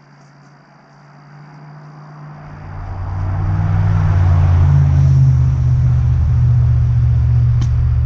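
A low engine rumble comes in about two seconds in, builds over a second or two, and then runs steadily and loud.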